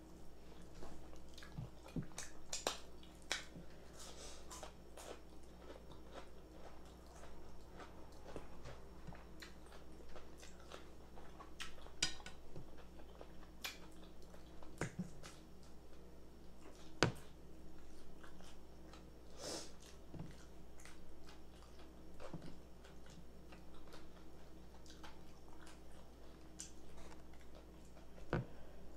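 Chewing and biting fried chicken, with irregular sharp crunches and mouth clicks, and fingers picking at the meat.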